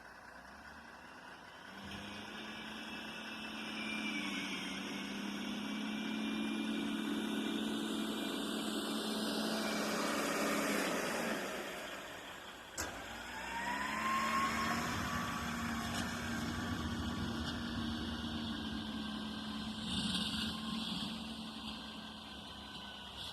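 Tractor engine running steadily as it scrapes snow from the road. It grows louder and fades twice, with a sharp click in between.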